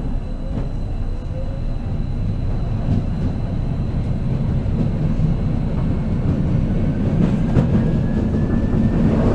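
Vienna U-Bahn train running, heard from inside the car: a steady low rumble, with a faint whine rising in pitch near the end.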